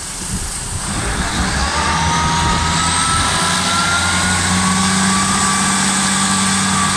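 ScotRail Class 158 diesel multiple unit moving along the platform under power. Its underfloor diesel engines run steadily, and a whine rises slowly in pitch as the train gathers speed.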